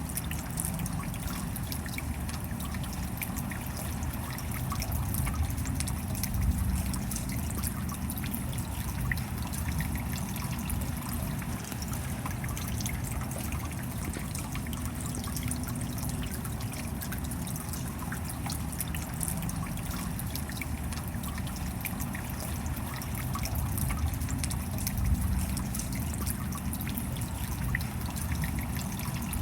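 Steady rain, with many small drop ticks over an even hiss and a low rumble underneath.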